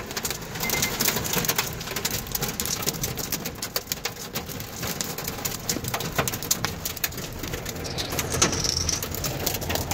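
Heavy rain and hail pelting a car's roof and windows, heard from inside the car as a dense, continuous patter of sharp hits.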